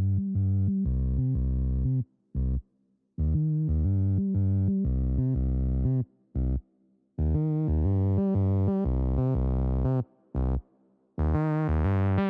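Electronic background music with a heavy synth bass line, playing in short phrases that drop to dead silence several times.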